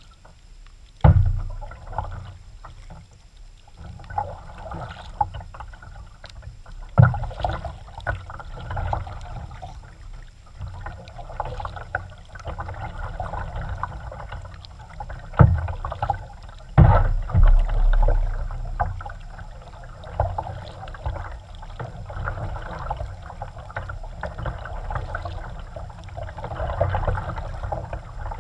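Kayak paddling: steady splashing of paddle strokes in the water, with four sharp knocks spread through, the first about a second in.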